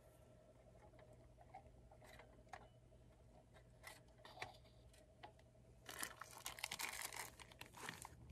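Faint scraping and clicking of a utensil stirring food in a Jetboil cooking pot on a gas canister stove, with a denser run of scraping about six seconds in.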